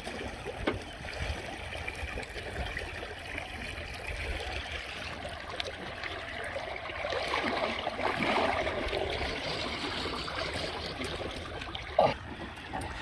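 Water splashing and trickling at the side of a wooden boat as a diver surfaces and hauls himself up over the gunwale, water streaming off his body.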